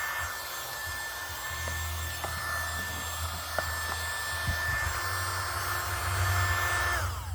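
Small USB-powered mini vacuum cleaner running with a steady high-pitched motor whine and airflow hiss, with a few light knocks. Near the end it is switched off, and the whine falls in pitch as the motor winds down.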